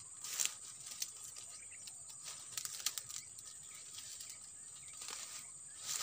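Dry cane leaves and a bird net rustling and crackling in short, irregular rustles as the net is handled in the cane, over a steady high-pitched insect drone that stops just before the end.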